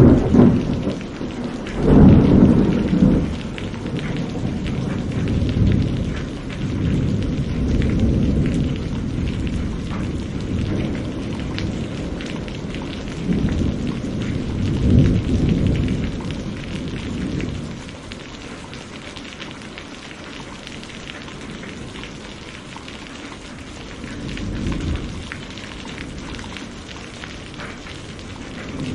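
Steady rain with rolling thunder: deep rumbles swell and fade several times, loudest about two seconds in and again around fifteen seconds, over a constant patter of rain, which carries on more quietly after the rumbles die down near the end.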